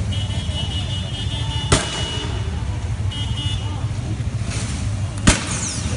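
Two sharp bangs about three and a half seconds apart, the second the louder: shots from riot-control weapons firing tear gas and pellets. Beneath them runs a steady low rumble, with a high steady tone at the start and again briefly halfway through.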